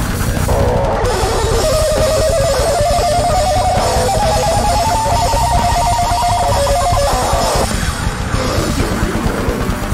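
Death metal band playing live: a distorted electric guitar solo of very fast notes, tapped with both hands on the fretboard, climbing gradually in pitch over bass and drums. The solo line stops a little before the end.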